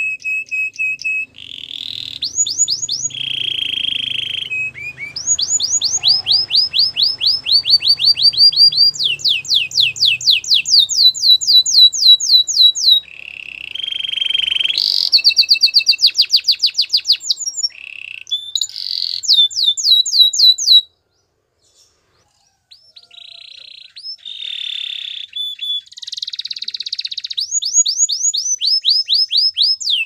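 Domestic canary singing: fast trills of repeated rising notes, some high and clipped, some lower and rolling, with steady held whistles between them. The song breaks off for about a second and a half roughly two-thirds through, then goes on.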